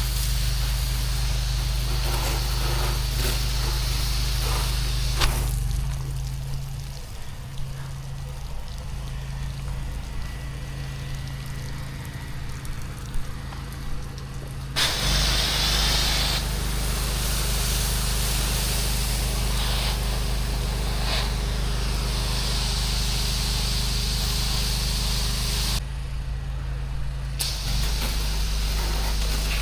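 Engine of a pressure-washing rig running steadily, with the hiss of water spray that stops twice for several seconds, the engine note shifting each time the spray stops and restarts.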